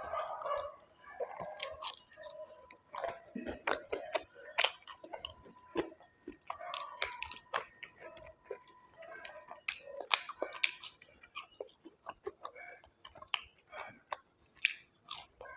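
A person eating close to the microphone: chewing and biting, with irregular sharp mouth clicks and smacks.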